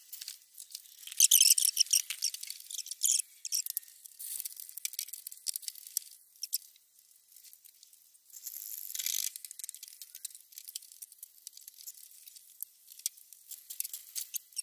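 Chain hoist being hauled by hand to lift an engine: the chain rattling through the hoist as thin, rapid clicking, in bursts with a quieter stretch about seven seconds in.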